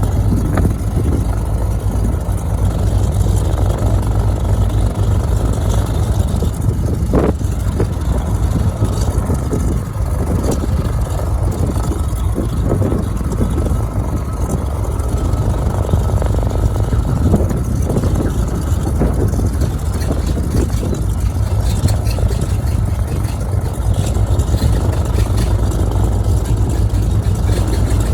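Beechcraft JRB-6's twin Pratt & Whitney R-985 radial engines running steadily.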